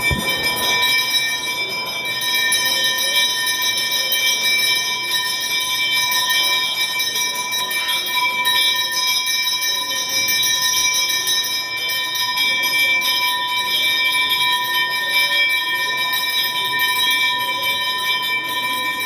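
Temple bell rung rapidly and without pause for an aarti, its ringing tones held steady.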